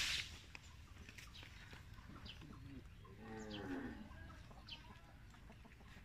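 A single low moo from cattle, lasting just under a second about three seconds in, with small birds chirping throughout. A short burst of noise right at the start is the loudest sound.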